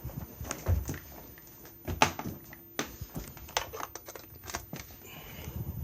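Scattered, irregular light clicks and knocks of a carpet cleaner and its power cord being handled while it is plugged in, with no motor running yet.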